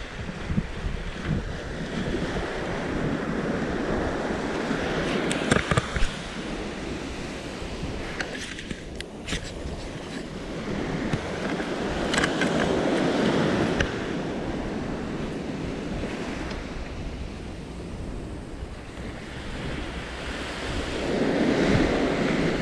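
Small ocean waves breaking and washing up a sandy beach, the surf noise swelling three times as each wave runs in, with wind rumbling on the microphone. A few sharp clicks come in the first half.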